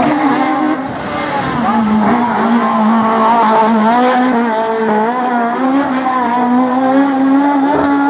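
Peugeot 306 Maxi kit car's naturally aspirated four-cylinder rally engine at high revs. The note rises and falls with throttle and gear changes, and climbs near the end.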